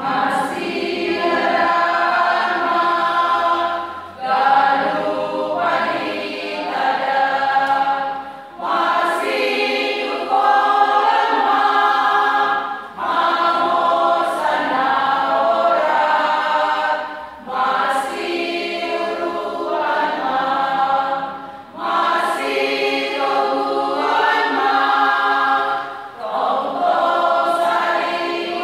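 Women's church choir singing a hymn, in phrases of about four seconds with short breaks for breath between them.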